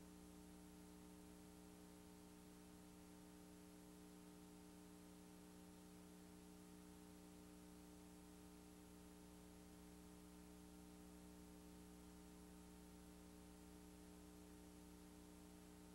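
Near silence: a faint, steady electrical hum with a low hiss underneath.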